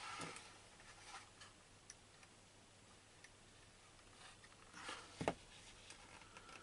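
Near silence with quiet handling of plastic model kit parts and a glue tube on a workbench: a few faint clicks and taps, and a sharper knock about five seconds in.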